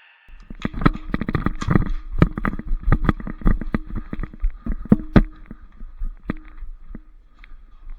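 Quick, irregular footsteps and clattering knocks of airsoft players running and moving with their gear, busiest in the first few seconds and thinning out after, over a faint steady hum.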